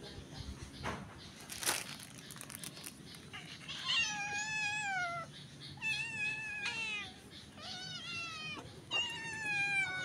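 Domestic cat meowing four times in the second half, each meow about a second long and dropping in pitch at its end. Two short clicks come before it, in the first two seconds.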